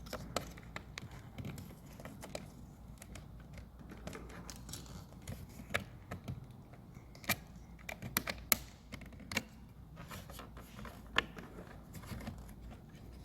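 Scattered small plastic clicks and taps from handling a car side mirror's turn-signal housing as it is worked loose, a few sharper clicks about halfway through.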